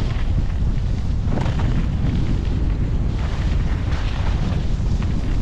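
Wind buffeting the microphone in a steady low rumble while skiing, with skis hissing and scraping over groomed artificial snow in swells every second or two.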